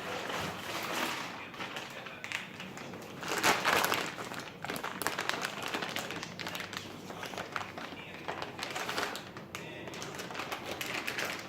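Packaging being handled while a boxed TV is unpacked: irregular rustling with sharp taps and clicks, loudest in a rustling burst about three and a half seconds in.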